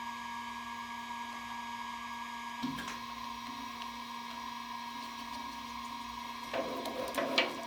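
Steady hum of a machine-tool motor running lightly. There is a single knock about a third of the way in and some clattering near the end.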